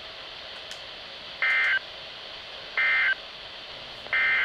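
Emergency Alert System SAME end-of-message signal on NOAA Weather Radio: three short, identical bursts of two-tone digital data, about a second and a half apart, over steady radio hiss. These marks close the severe thunderstorm warning broadcast.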